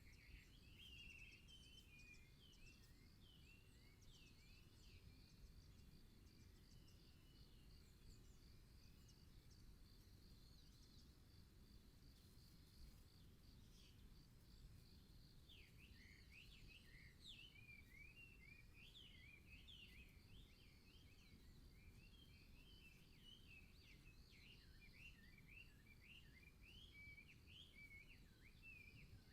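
Faint birdsong: several small birds chirping in quick notes that slide up and down, scattered at first and busier from about halfway through, with a steady high pulsing trill and a low background hiss underneath.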